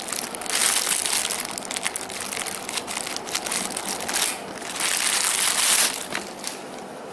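Thin clear plastic packaging bag crinkling and crackling as it is handled, opened and a folded shirt is pulled out of it, loudest about half a second in and again around five seconds in, then dying down near the end.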